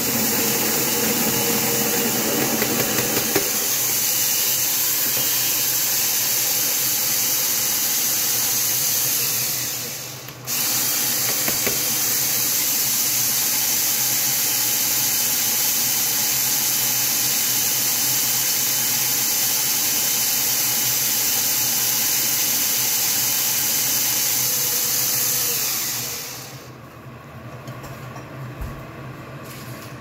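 Electric burr coffee grinder running, grinding coffee beans with a steady, loud whir. About ten seconds in it winds down, then starts up again abruptly, and about four seconds before the end it winds down and stops.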